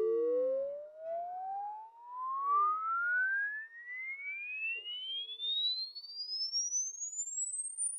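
Sine-wave test sweep played through Jensen CS315 loudspeakers: a single pure tone gliding steadily upward in pitch from the midrange into the high treble, used to measure the frequency response of the speakers' midrange and tweeter.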